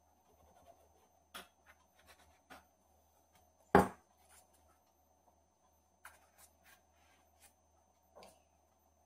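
Knife work and handling on a plastic cutting board: scattered soft taps and clicks as stacked napa cabbage, perilla leaves and thin-sliced beef are cut and moved, with one sharp knock a little under four seconds in.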